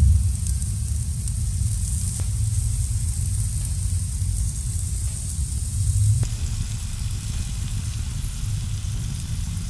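Flank steaks sizzling on gas grill grates over a low, steady rumble. The sound changes abruptly about six seconds in.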